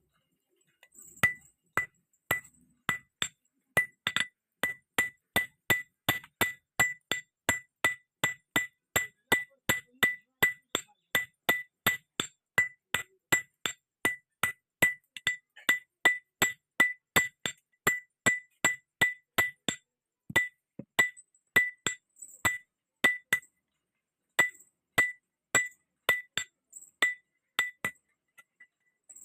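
Blacksmith's hammer striking iron on an anvil at a steady pace of about two blows a second, each blow ringing brightly. The hammering starts about a second in and pauses briefly twice in the second half.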